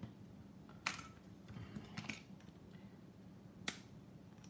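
Small hand tools picking and prying at a plastic connector housing on a tiny drone flight controller board, working it loose to expose the solder pins. Three sharp clicks, about a second in, about two seconds in and near the end, with a few fainter ticks between.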